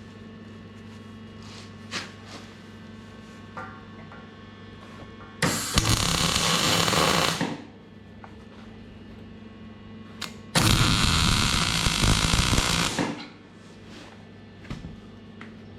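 Two spells of electric arc welding, each a dense hiss about two seconds long, as steel brace plates are welded on, over a steady electrical hum. A few faint clicks fall between the welds.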